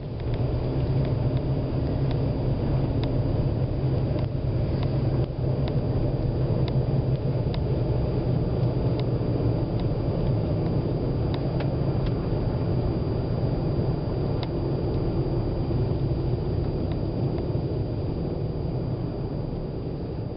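Engine and road noise heard inside a vehicle's cab while driving: a steady low rumble with faint light ticks now and then.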